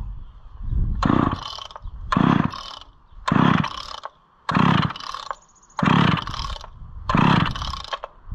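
Homelite Super XL two-stroke chainsaw being pull-started six times, about one pull a second, the engine turning over on each stroke of the starter rope without catching. It has sat unused for about 20 years and won't fire, so the owner thinks it needs a shot of starting fluid.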